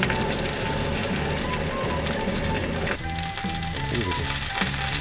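Meat sizzling on a camping griddle plate while a handheld butane torch flame hisses over it to sear it. The torch cuts off about three seconds in and the sizzling carries on. Background music with a repeating bass line plays underneath.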